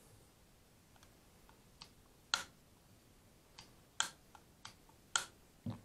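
Faint, sharp plastic clicks and taps, about eight at irregular intervals, from a hand handling a Dremel rotary tool, with a duller knock near the end.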